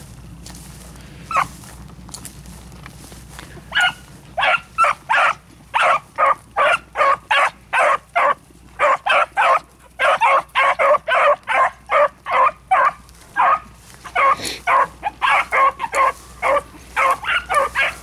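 Hunting beagles giving tongue while running a scent trail: short, sharp barks, about two to three a second. A single bark comes early, then a steady run of barks from about four seconds in, with a couple of brief pauses.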